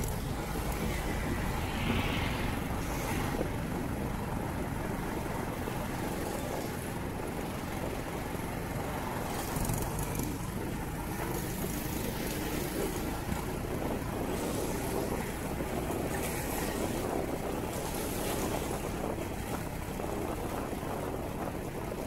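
Steady rush of wind and road noise from a moving motorcycle, with no distinct events.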